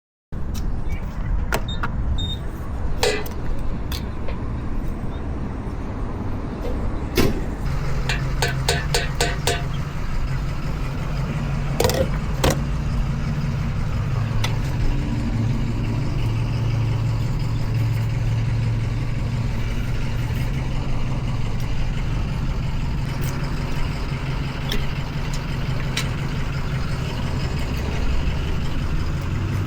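Royal Enfield Continental GT 650's 648 cc parallel-twin engine running with a steady low drone that gets stronger about seven seconds in. Several sharp clicks sound in the first half, including a quick run of them a little after the eight-second mark.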